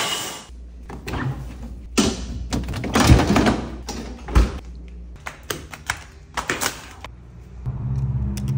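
Handling noises of a garden hose being taken down and its plastic quick-connect fittings pushed onto a tap: a string of clicks, knocks and rustles. A steady low hum starts near the end.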